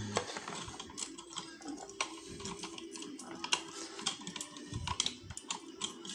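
Small metal lock pins and parts being handled on a work surface: irregular light clicks and taps, several a second.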